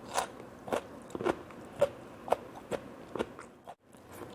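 Close-up chewing of raw carrot, with crisp crunches about twice a second and a short pause near the end.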